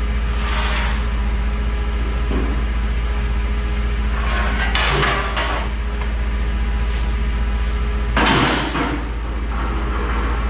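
Heavy steel scrap pieces clanking and scraping three times, the last the loudest about eight seconds in, over a steady low hum.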